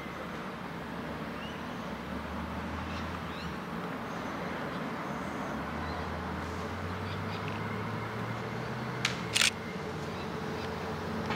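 Distant diesel multiple-unit passenger train approaching, a low engine hum under steady noise that slowly grows louder. Two sharp clicks stand out about nine seconds in.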